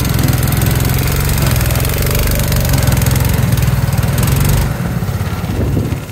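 A go-kart's small engine, mounted in the bed of a mini pickup-truck body, running loudly with a steady low hum. The sound drops in level about four and a half seconds in.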